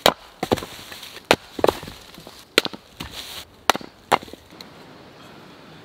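Axe splitting firewood rounds on a chopping block: a series of sharp chops and cracks of wood splitting, about seven strikes in the first four and a half seconds.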